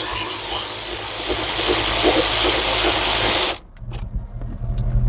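Small handheld power tool running steadily as it spins out a 10mm bolt through a socket and extension, cutting off about three and a half seconds in, followed by light metallic clicks.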